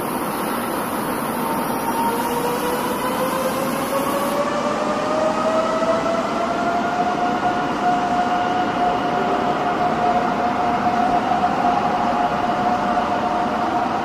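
Nishitetsu electric train's traction motors whining as it pulls away. The whine rises in pitch over about six seconds, then holds steady, over constant background noise.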